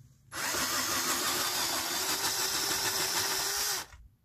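Power wrench running steadily for about three and a half seconds, with a steady mid-pitched whine, driving an E12 Torx socket on a long extension to undo an engine-mount bolt; it stops abruptly once the bolt is loose.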